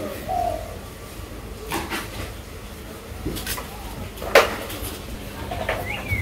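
Potatoes being cut by hand with a small knife, with a few sharp clicks and knocks as the cut pieces drop into a steel bowl, the loudest about four and a half seconds in.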